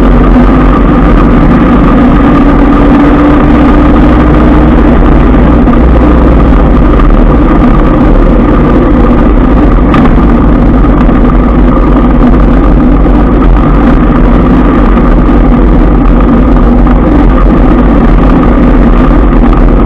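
Loud, unbroken road noise from a moving motorbike in heavy scooter traffic: wind rushing over the microphone and the steady hum of motorbike engines, with a single sharp click about halfway through.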